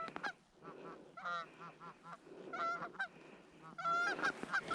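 Canada geese honking: short, repeated honks coming in scattered clusters, growing denser and louder near the end as the flock closes in.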